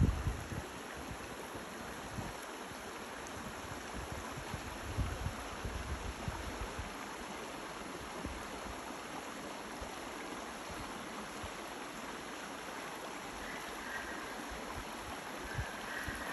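Mountain stream running: a steady rush of water, with a few low bumps on the microphone at the start and about five seconds in.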